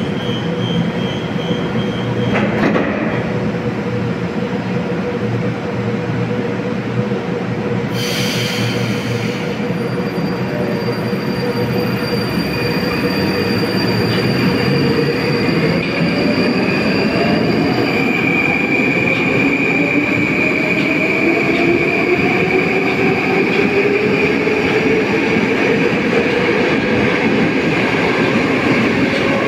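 Moscow Metro train pulling out of the station. A short hiss comes about eight seconds in, then a whine rises steadily in pitch over steady wheel and rail noise as the train gathers speed.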